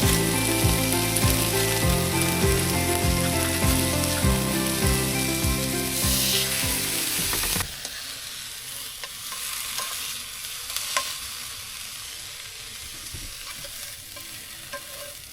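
Peppers and chestnut mushrooms frying in a pan: a steady sizzle with scattered clicks of a utensil stirring. Background music with a beat plays over the first half and stops abruptly about halfway through.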